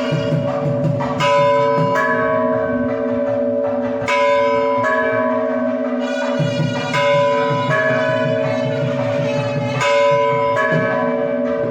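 Large temple bells ringing, struck over and over with a fresh stroke every second or two, often two close together. Each stroke rings on in several steady overlapping tones.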